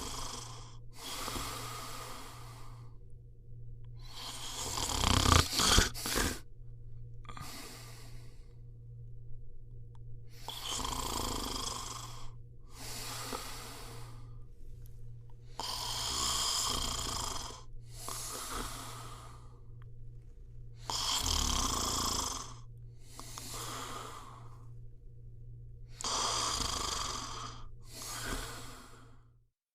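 A person snoring in slow, even breaths, about one every five seconds. Each breath is a longer rasp followed by a shorter one. The loudest, with a sharp snort, comes about five seconds in.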